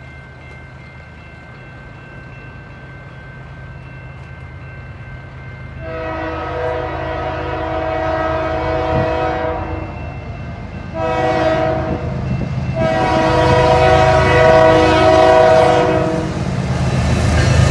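Multi-note air horn of a CN diesel freight locomotive (GE ES44DC 2283 leading) sounding for a grade crossing: a long blast, a short blast, then another long blast. Under the horn the low rumble of the locomotives grows louder as the train approaches and the lead unit passes close near the end.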